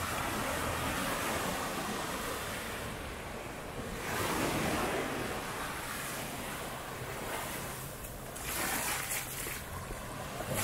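Sea surf breaking and washing up on a sandy beach, with two louder waves about four seconds in and again near the end, and some wind on the microphone.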